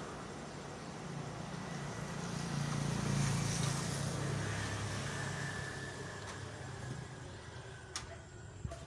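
A motor vehicle's engine passing by, growing louder to about three seconds in and then fading away.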